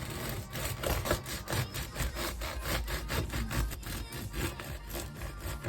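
Knife sawing back and forth through food on a wooden chopping board, in rapid, uneven strokes.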